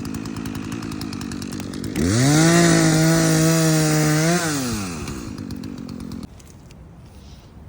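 Small petrol engine running, revved up about two seconds in and held for a couple of seconds, then dropping back down and cutting out about six seconds in.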